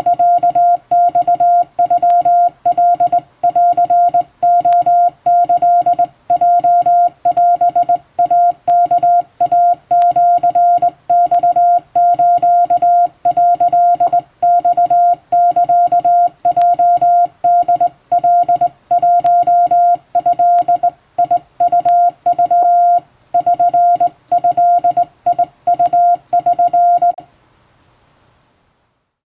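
Hand-keyed Japanese Wabun Morse code: a single steady beep tone broken into dots and dashes with an uneven human rhythm. The keying stops near the end.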